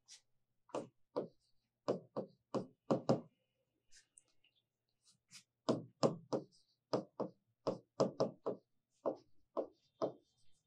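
Chalk tapping and stroking on a blackboard as letters and symbols are written: a series of short sharp knocks, in a cluster about a second in and a longer run from about five and a half seconds on.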